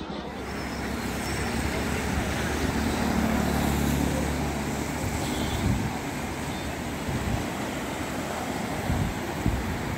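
Steady rushing noise of fast-flowing muddy floodwater, with a low rumble in the first half.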